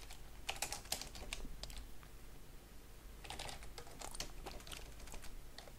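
Typing on a computer keyboard, two runs of quick keystrokes with a pause between them.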